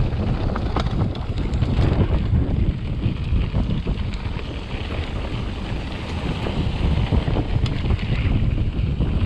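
Wind buffeting the action camera's microphone as a hardtail mountain bike rides downhill over rough dirt trail. Tyre noise and scattered clicks and rattles from the bike run under it.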